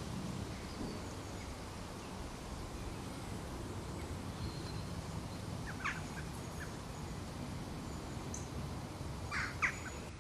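Wild birds calling in short sharp notes, a small cluster about six seconds in and a louder pair near the end, over a steady low rumbling noise.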